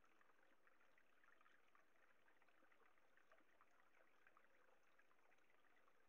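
Near silence, with a faint, steady trickle of running water.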